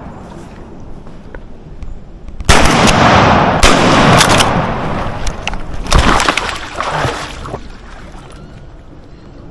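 Three shotgun shots at flying ducks: two blasts a little over a second apart, then a third about two seconds later, each trailing off slowly.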